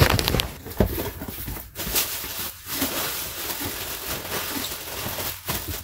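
Bubble wrap and plastic packing crinkling and rustling as they are pulled out of a cardboard box, with scattered sharp crackles and a few knocks of handling.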